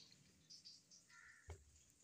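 Near silence: faint soft handling of a chicken leg being pressed into cornflour on a steel plate, with one small tap about a second and a half in.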